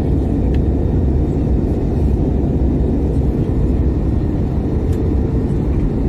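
Steady low rumble of engine and airflow noise inside an Airbus A321neo cabin in flight, with a faint steady hum.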